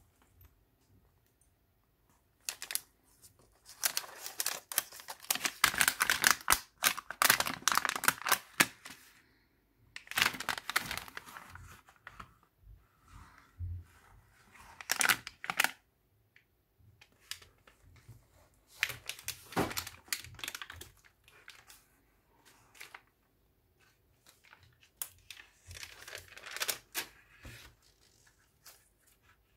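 Thick, layered pages of a handmade junk journal rustling and crinkling as they are handled and turned, in several bursts with quiet pauses between.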